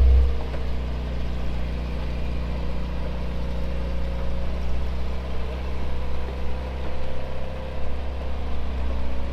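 Audi RSQ concept car driving slowly as it turns around on its spherical wheels: a steady low hum with a faint, slightly wavering whine above it.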